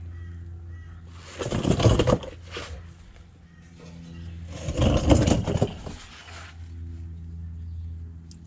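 Two rough scraping bursts, about three seconds apart, over a steady low hum.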